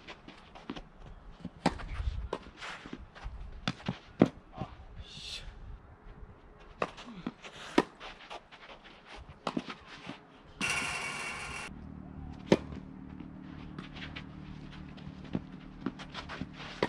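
Tennis balls struck by rackets during a doubles rally: sharp, irregular pops of ball on strings, with bounces and scuffing footsteps between them. Around the middle, a hiss lasting about a second cuts in, then a low steady hum stays underneath.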